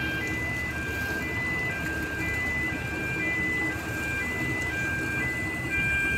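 An electronic chime repeats a short tune of clear beeps at a few different pitches, each about half a second long, over a steady low rumble.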